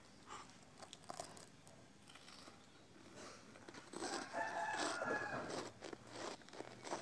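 A rooster crowing once, one long call about four seconds in. Before it there is faint crunching from snacks being eaten.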